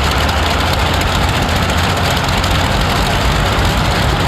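Competition tractor-pulling tractor 'Dragonfire', 42 cylinders and 147 litres, running loud and steady at full power while dragging the brake sled near the end of a full pull.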